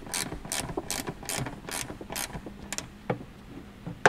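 Ratcheting wrench clicking in quick, even strokes, about two and a half a second, as it tightens a bolt. The strokes stop about two seconds in, followed by a few single clicks.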